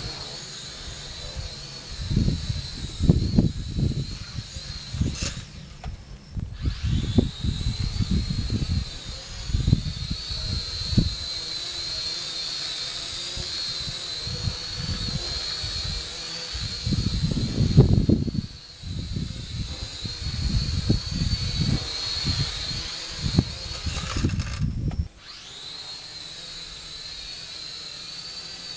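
Syma X5C quadcopter's small motors whining high and steady, the pitch wavering as the throttle works against strong wind; the whine drops away briefly about five seconds in and again near the end. Strong wind buffets the microphone in loud gusts underneath.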